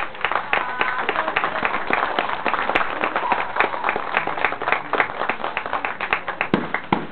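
Audience clapping and applauding, with a few voices faintly mixed in, easing off a little near the end.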